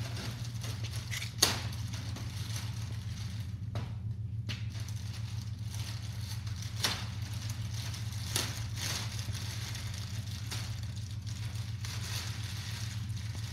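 A few sharp knocks and clicks from scooter parts and packaging being handled, the sharpest about a second and a half in, over a steady low hum.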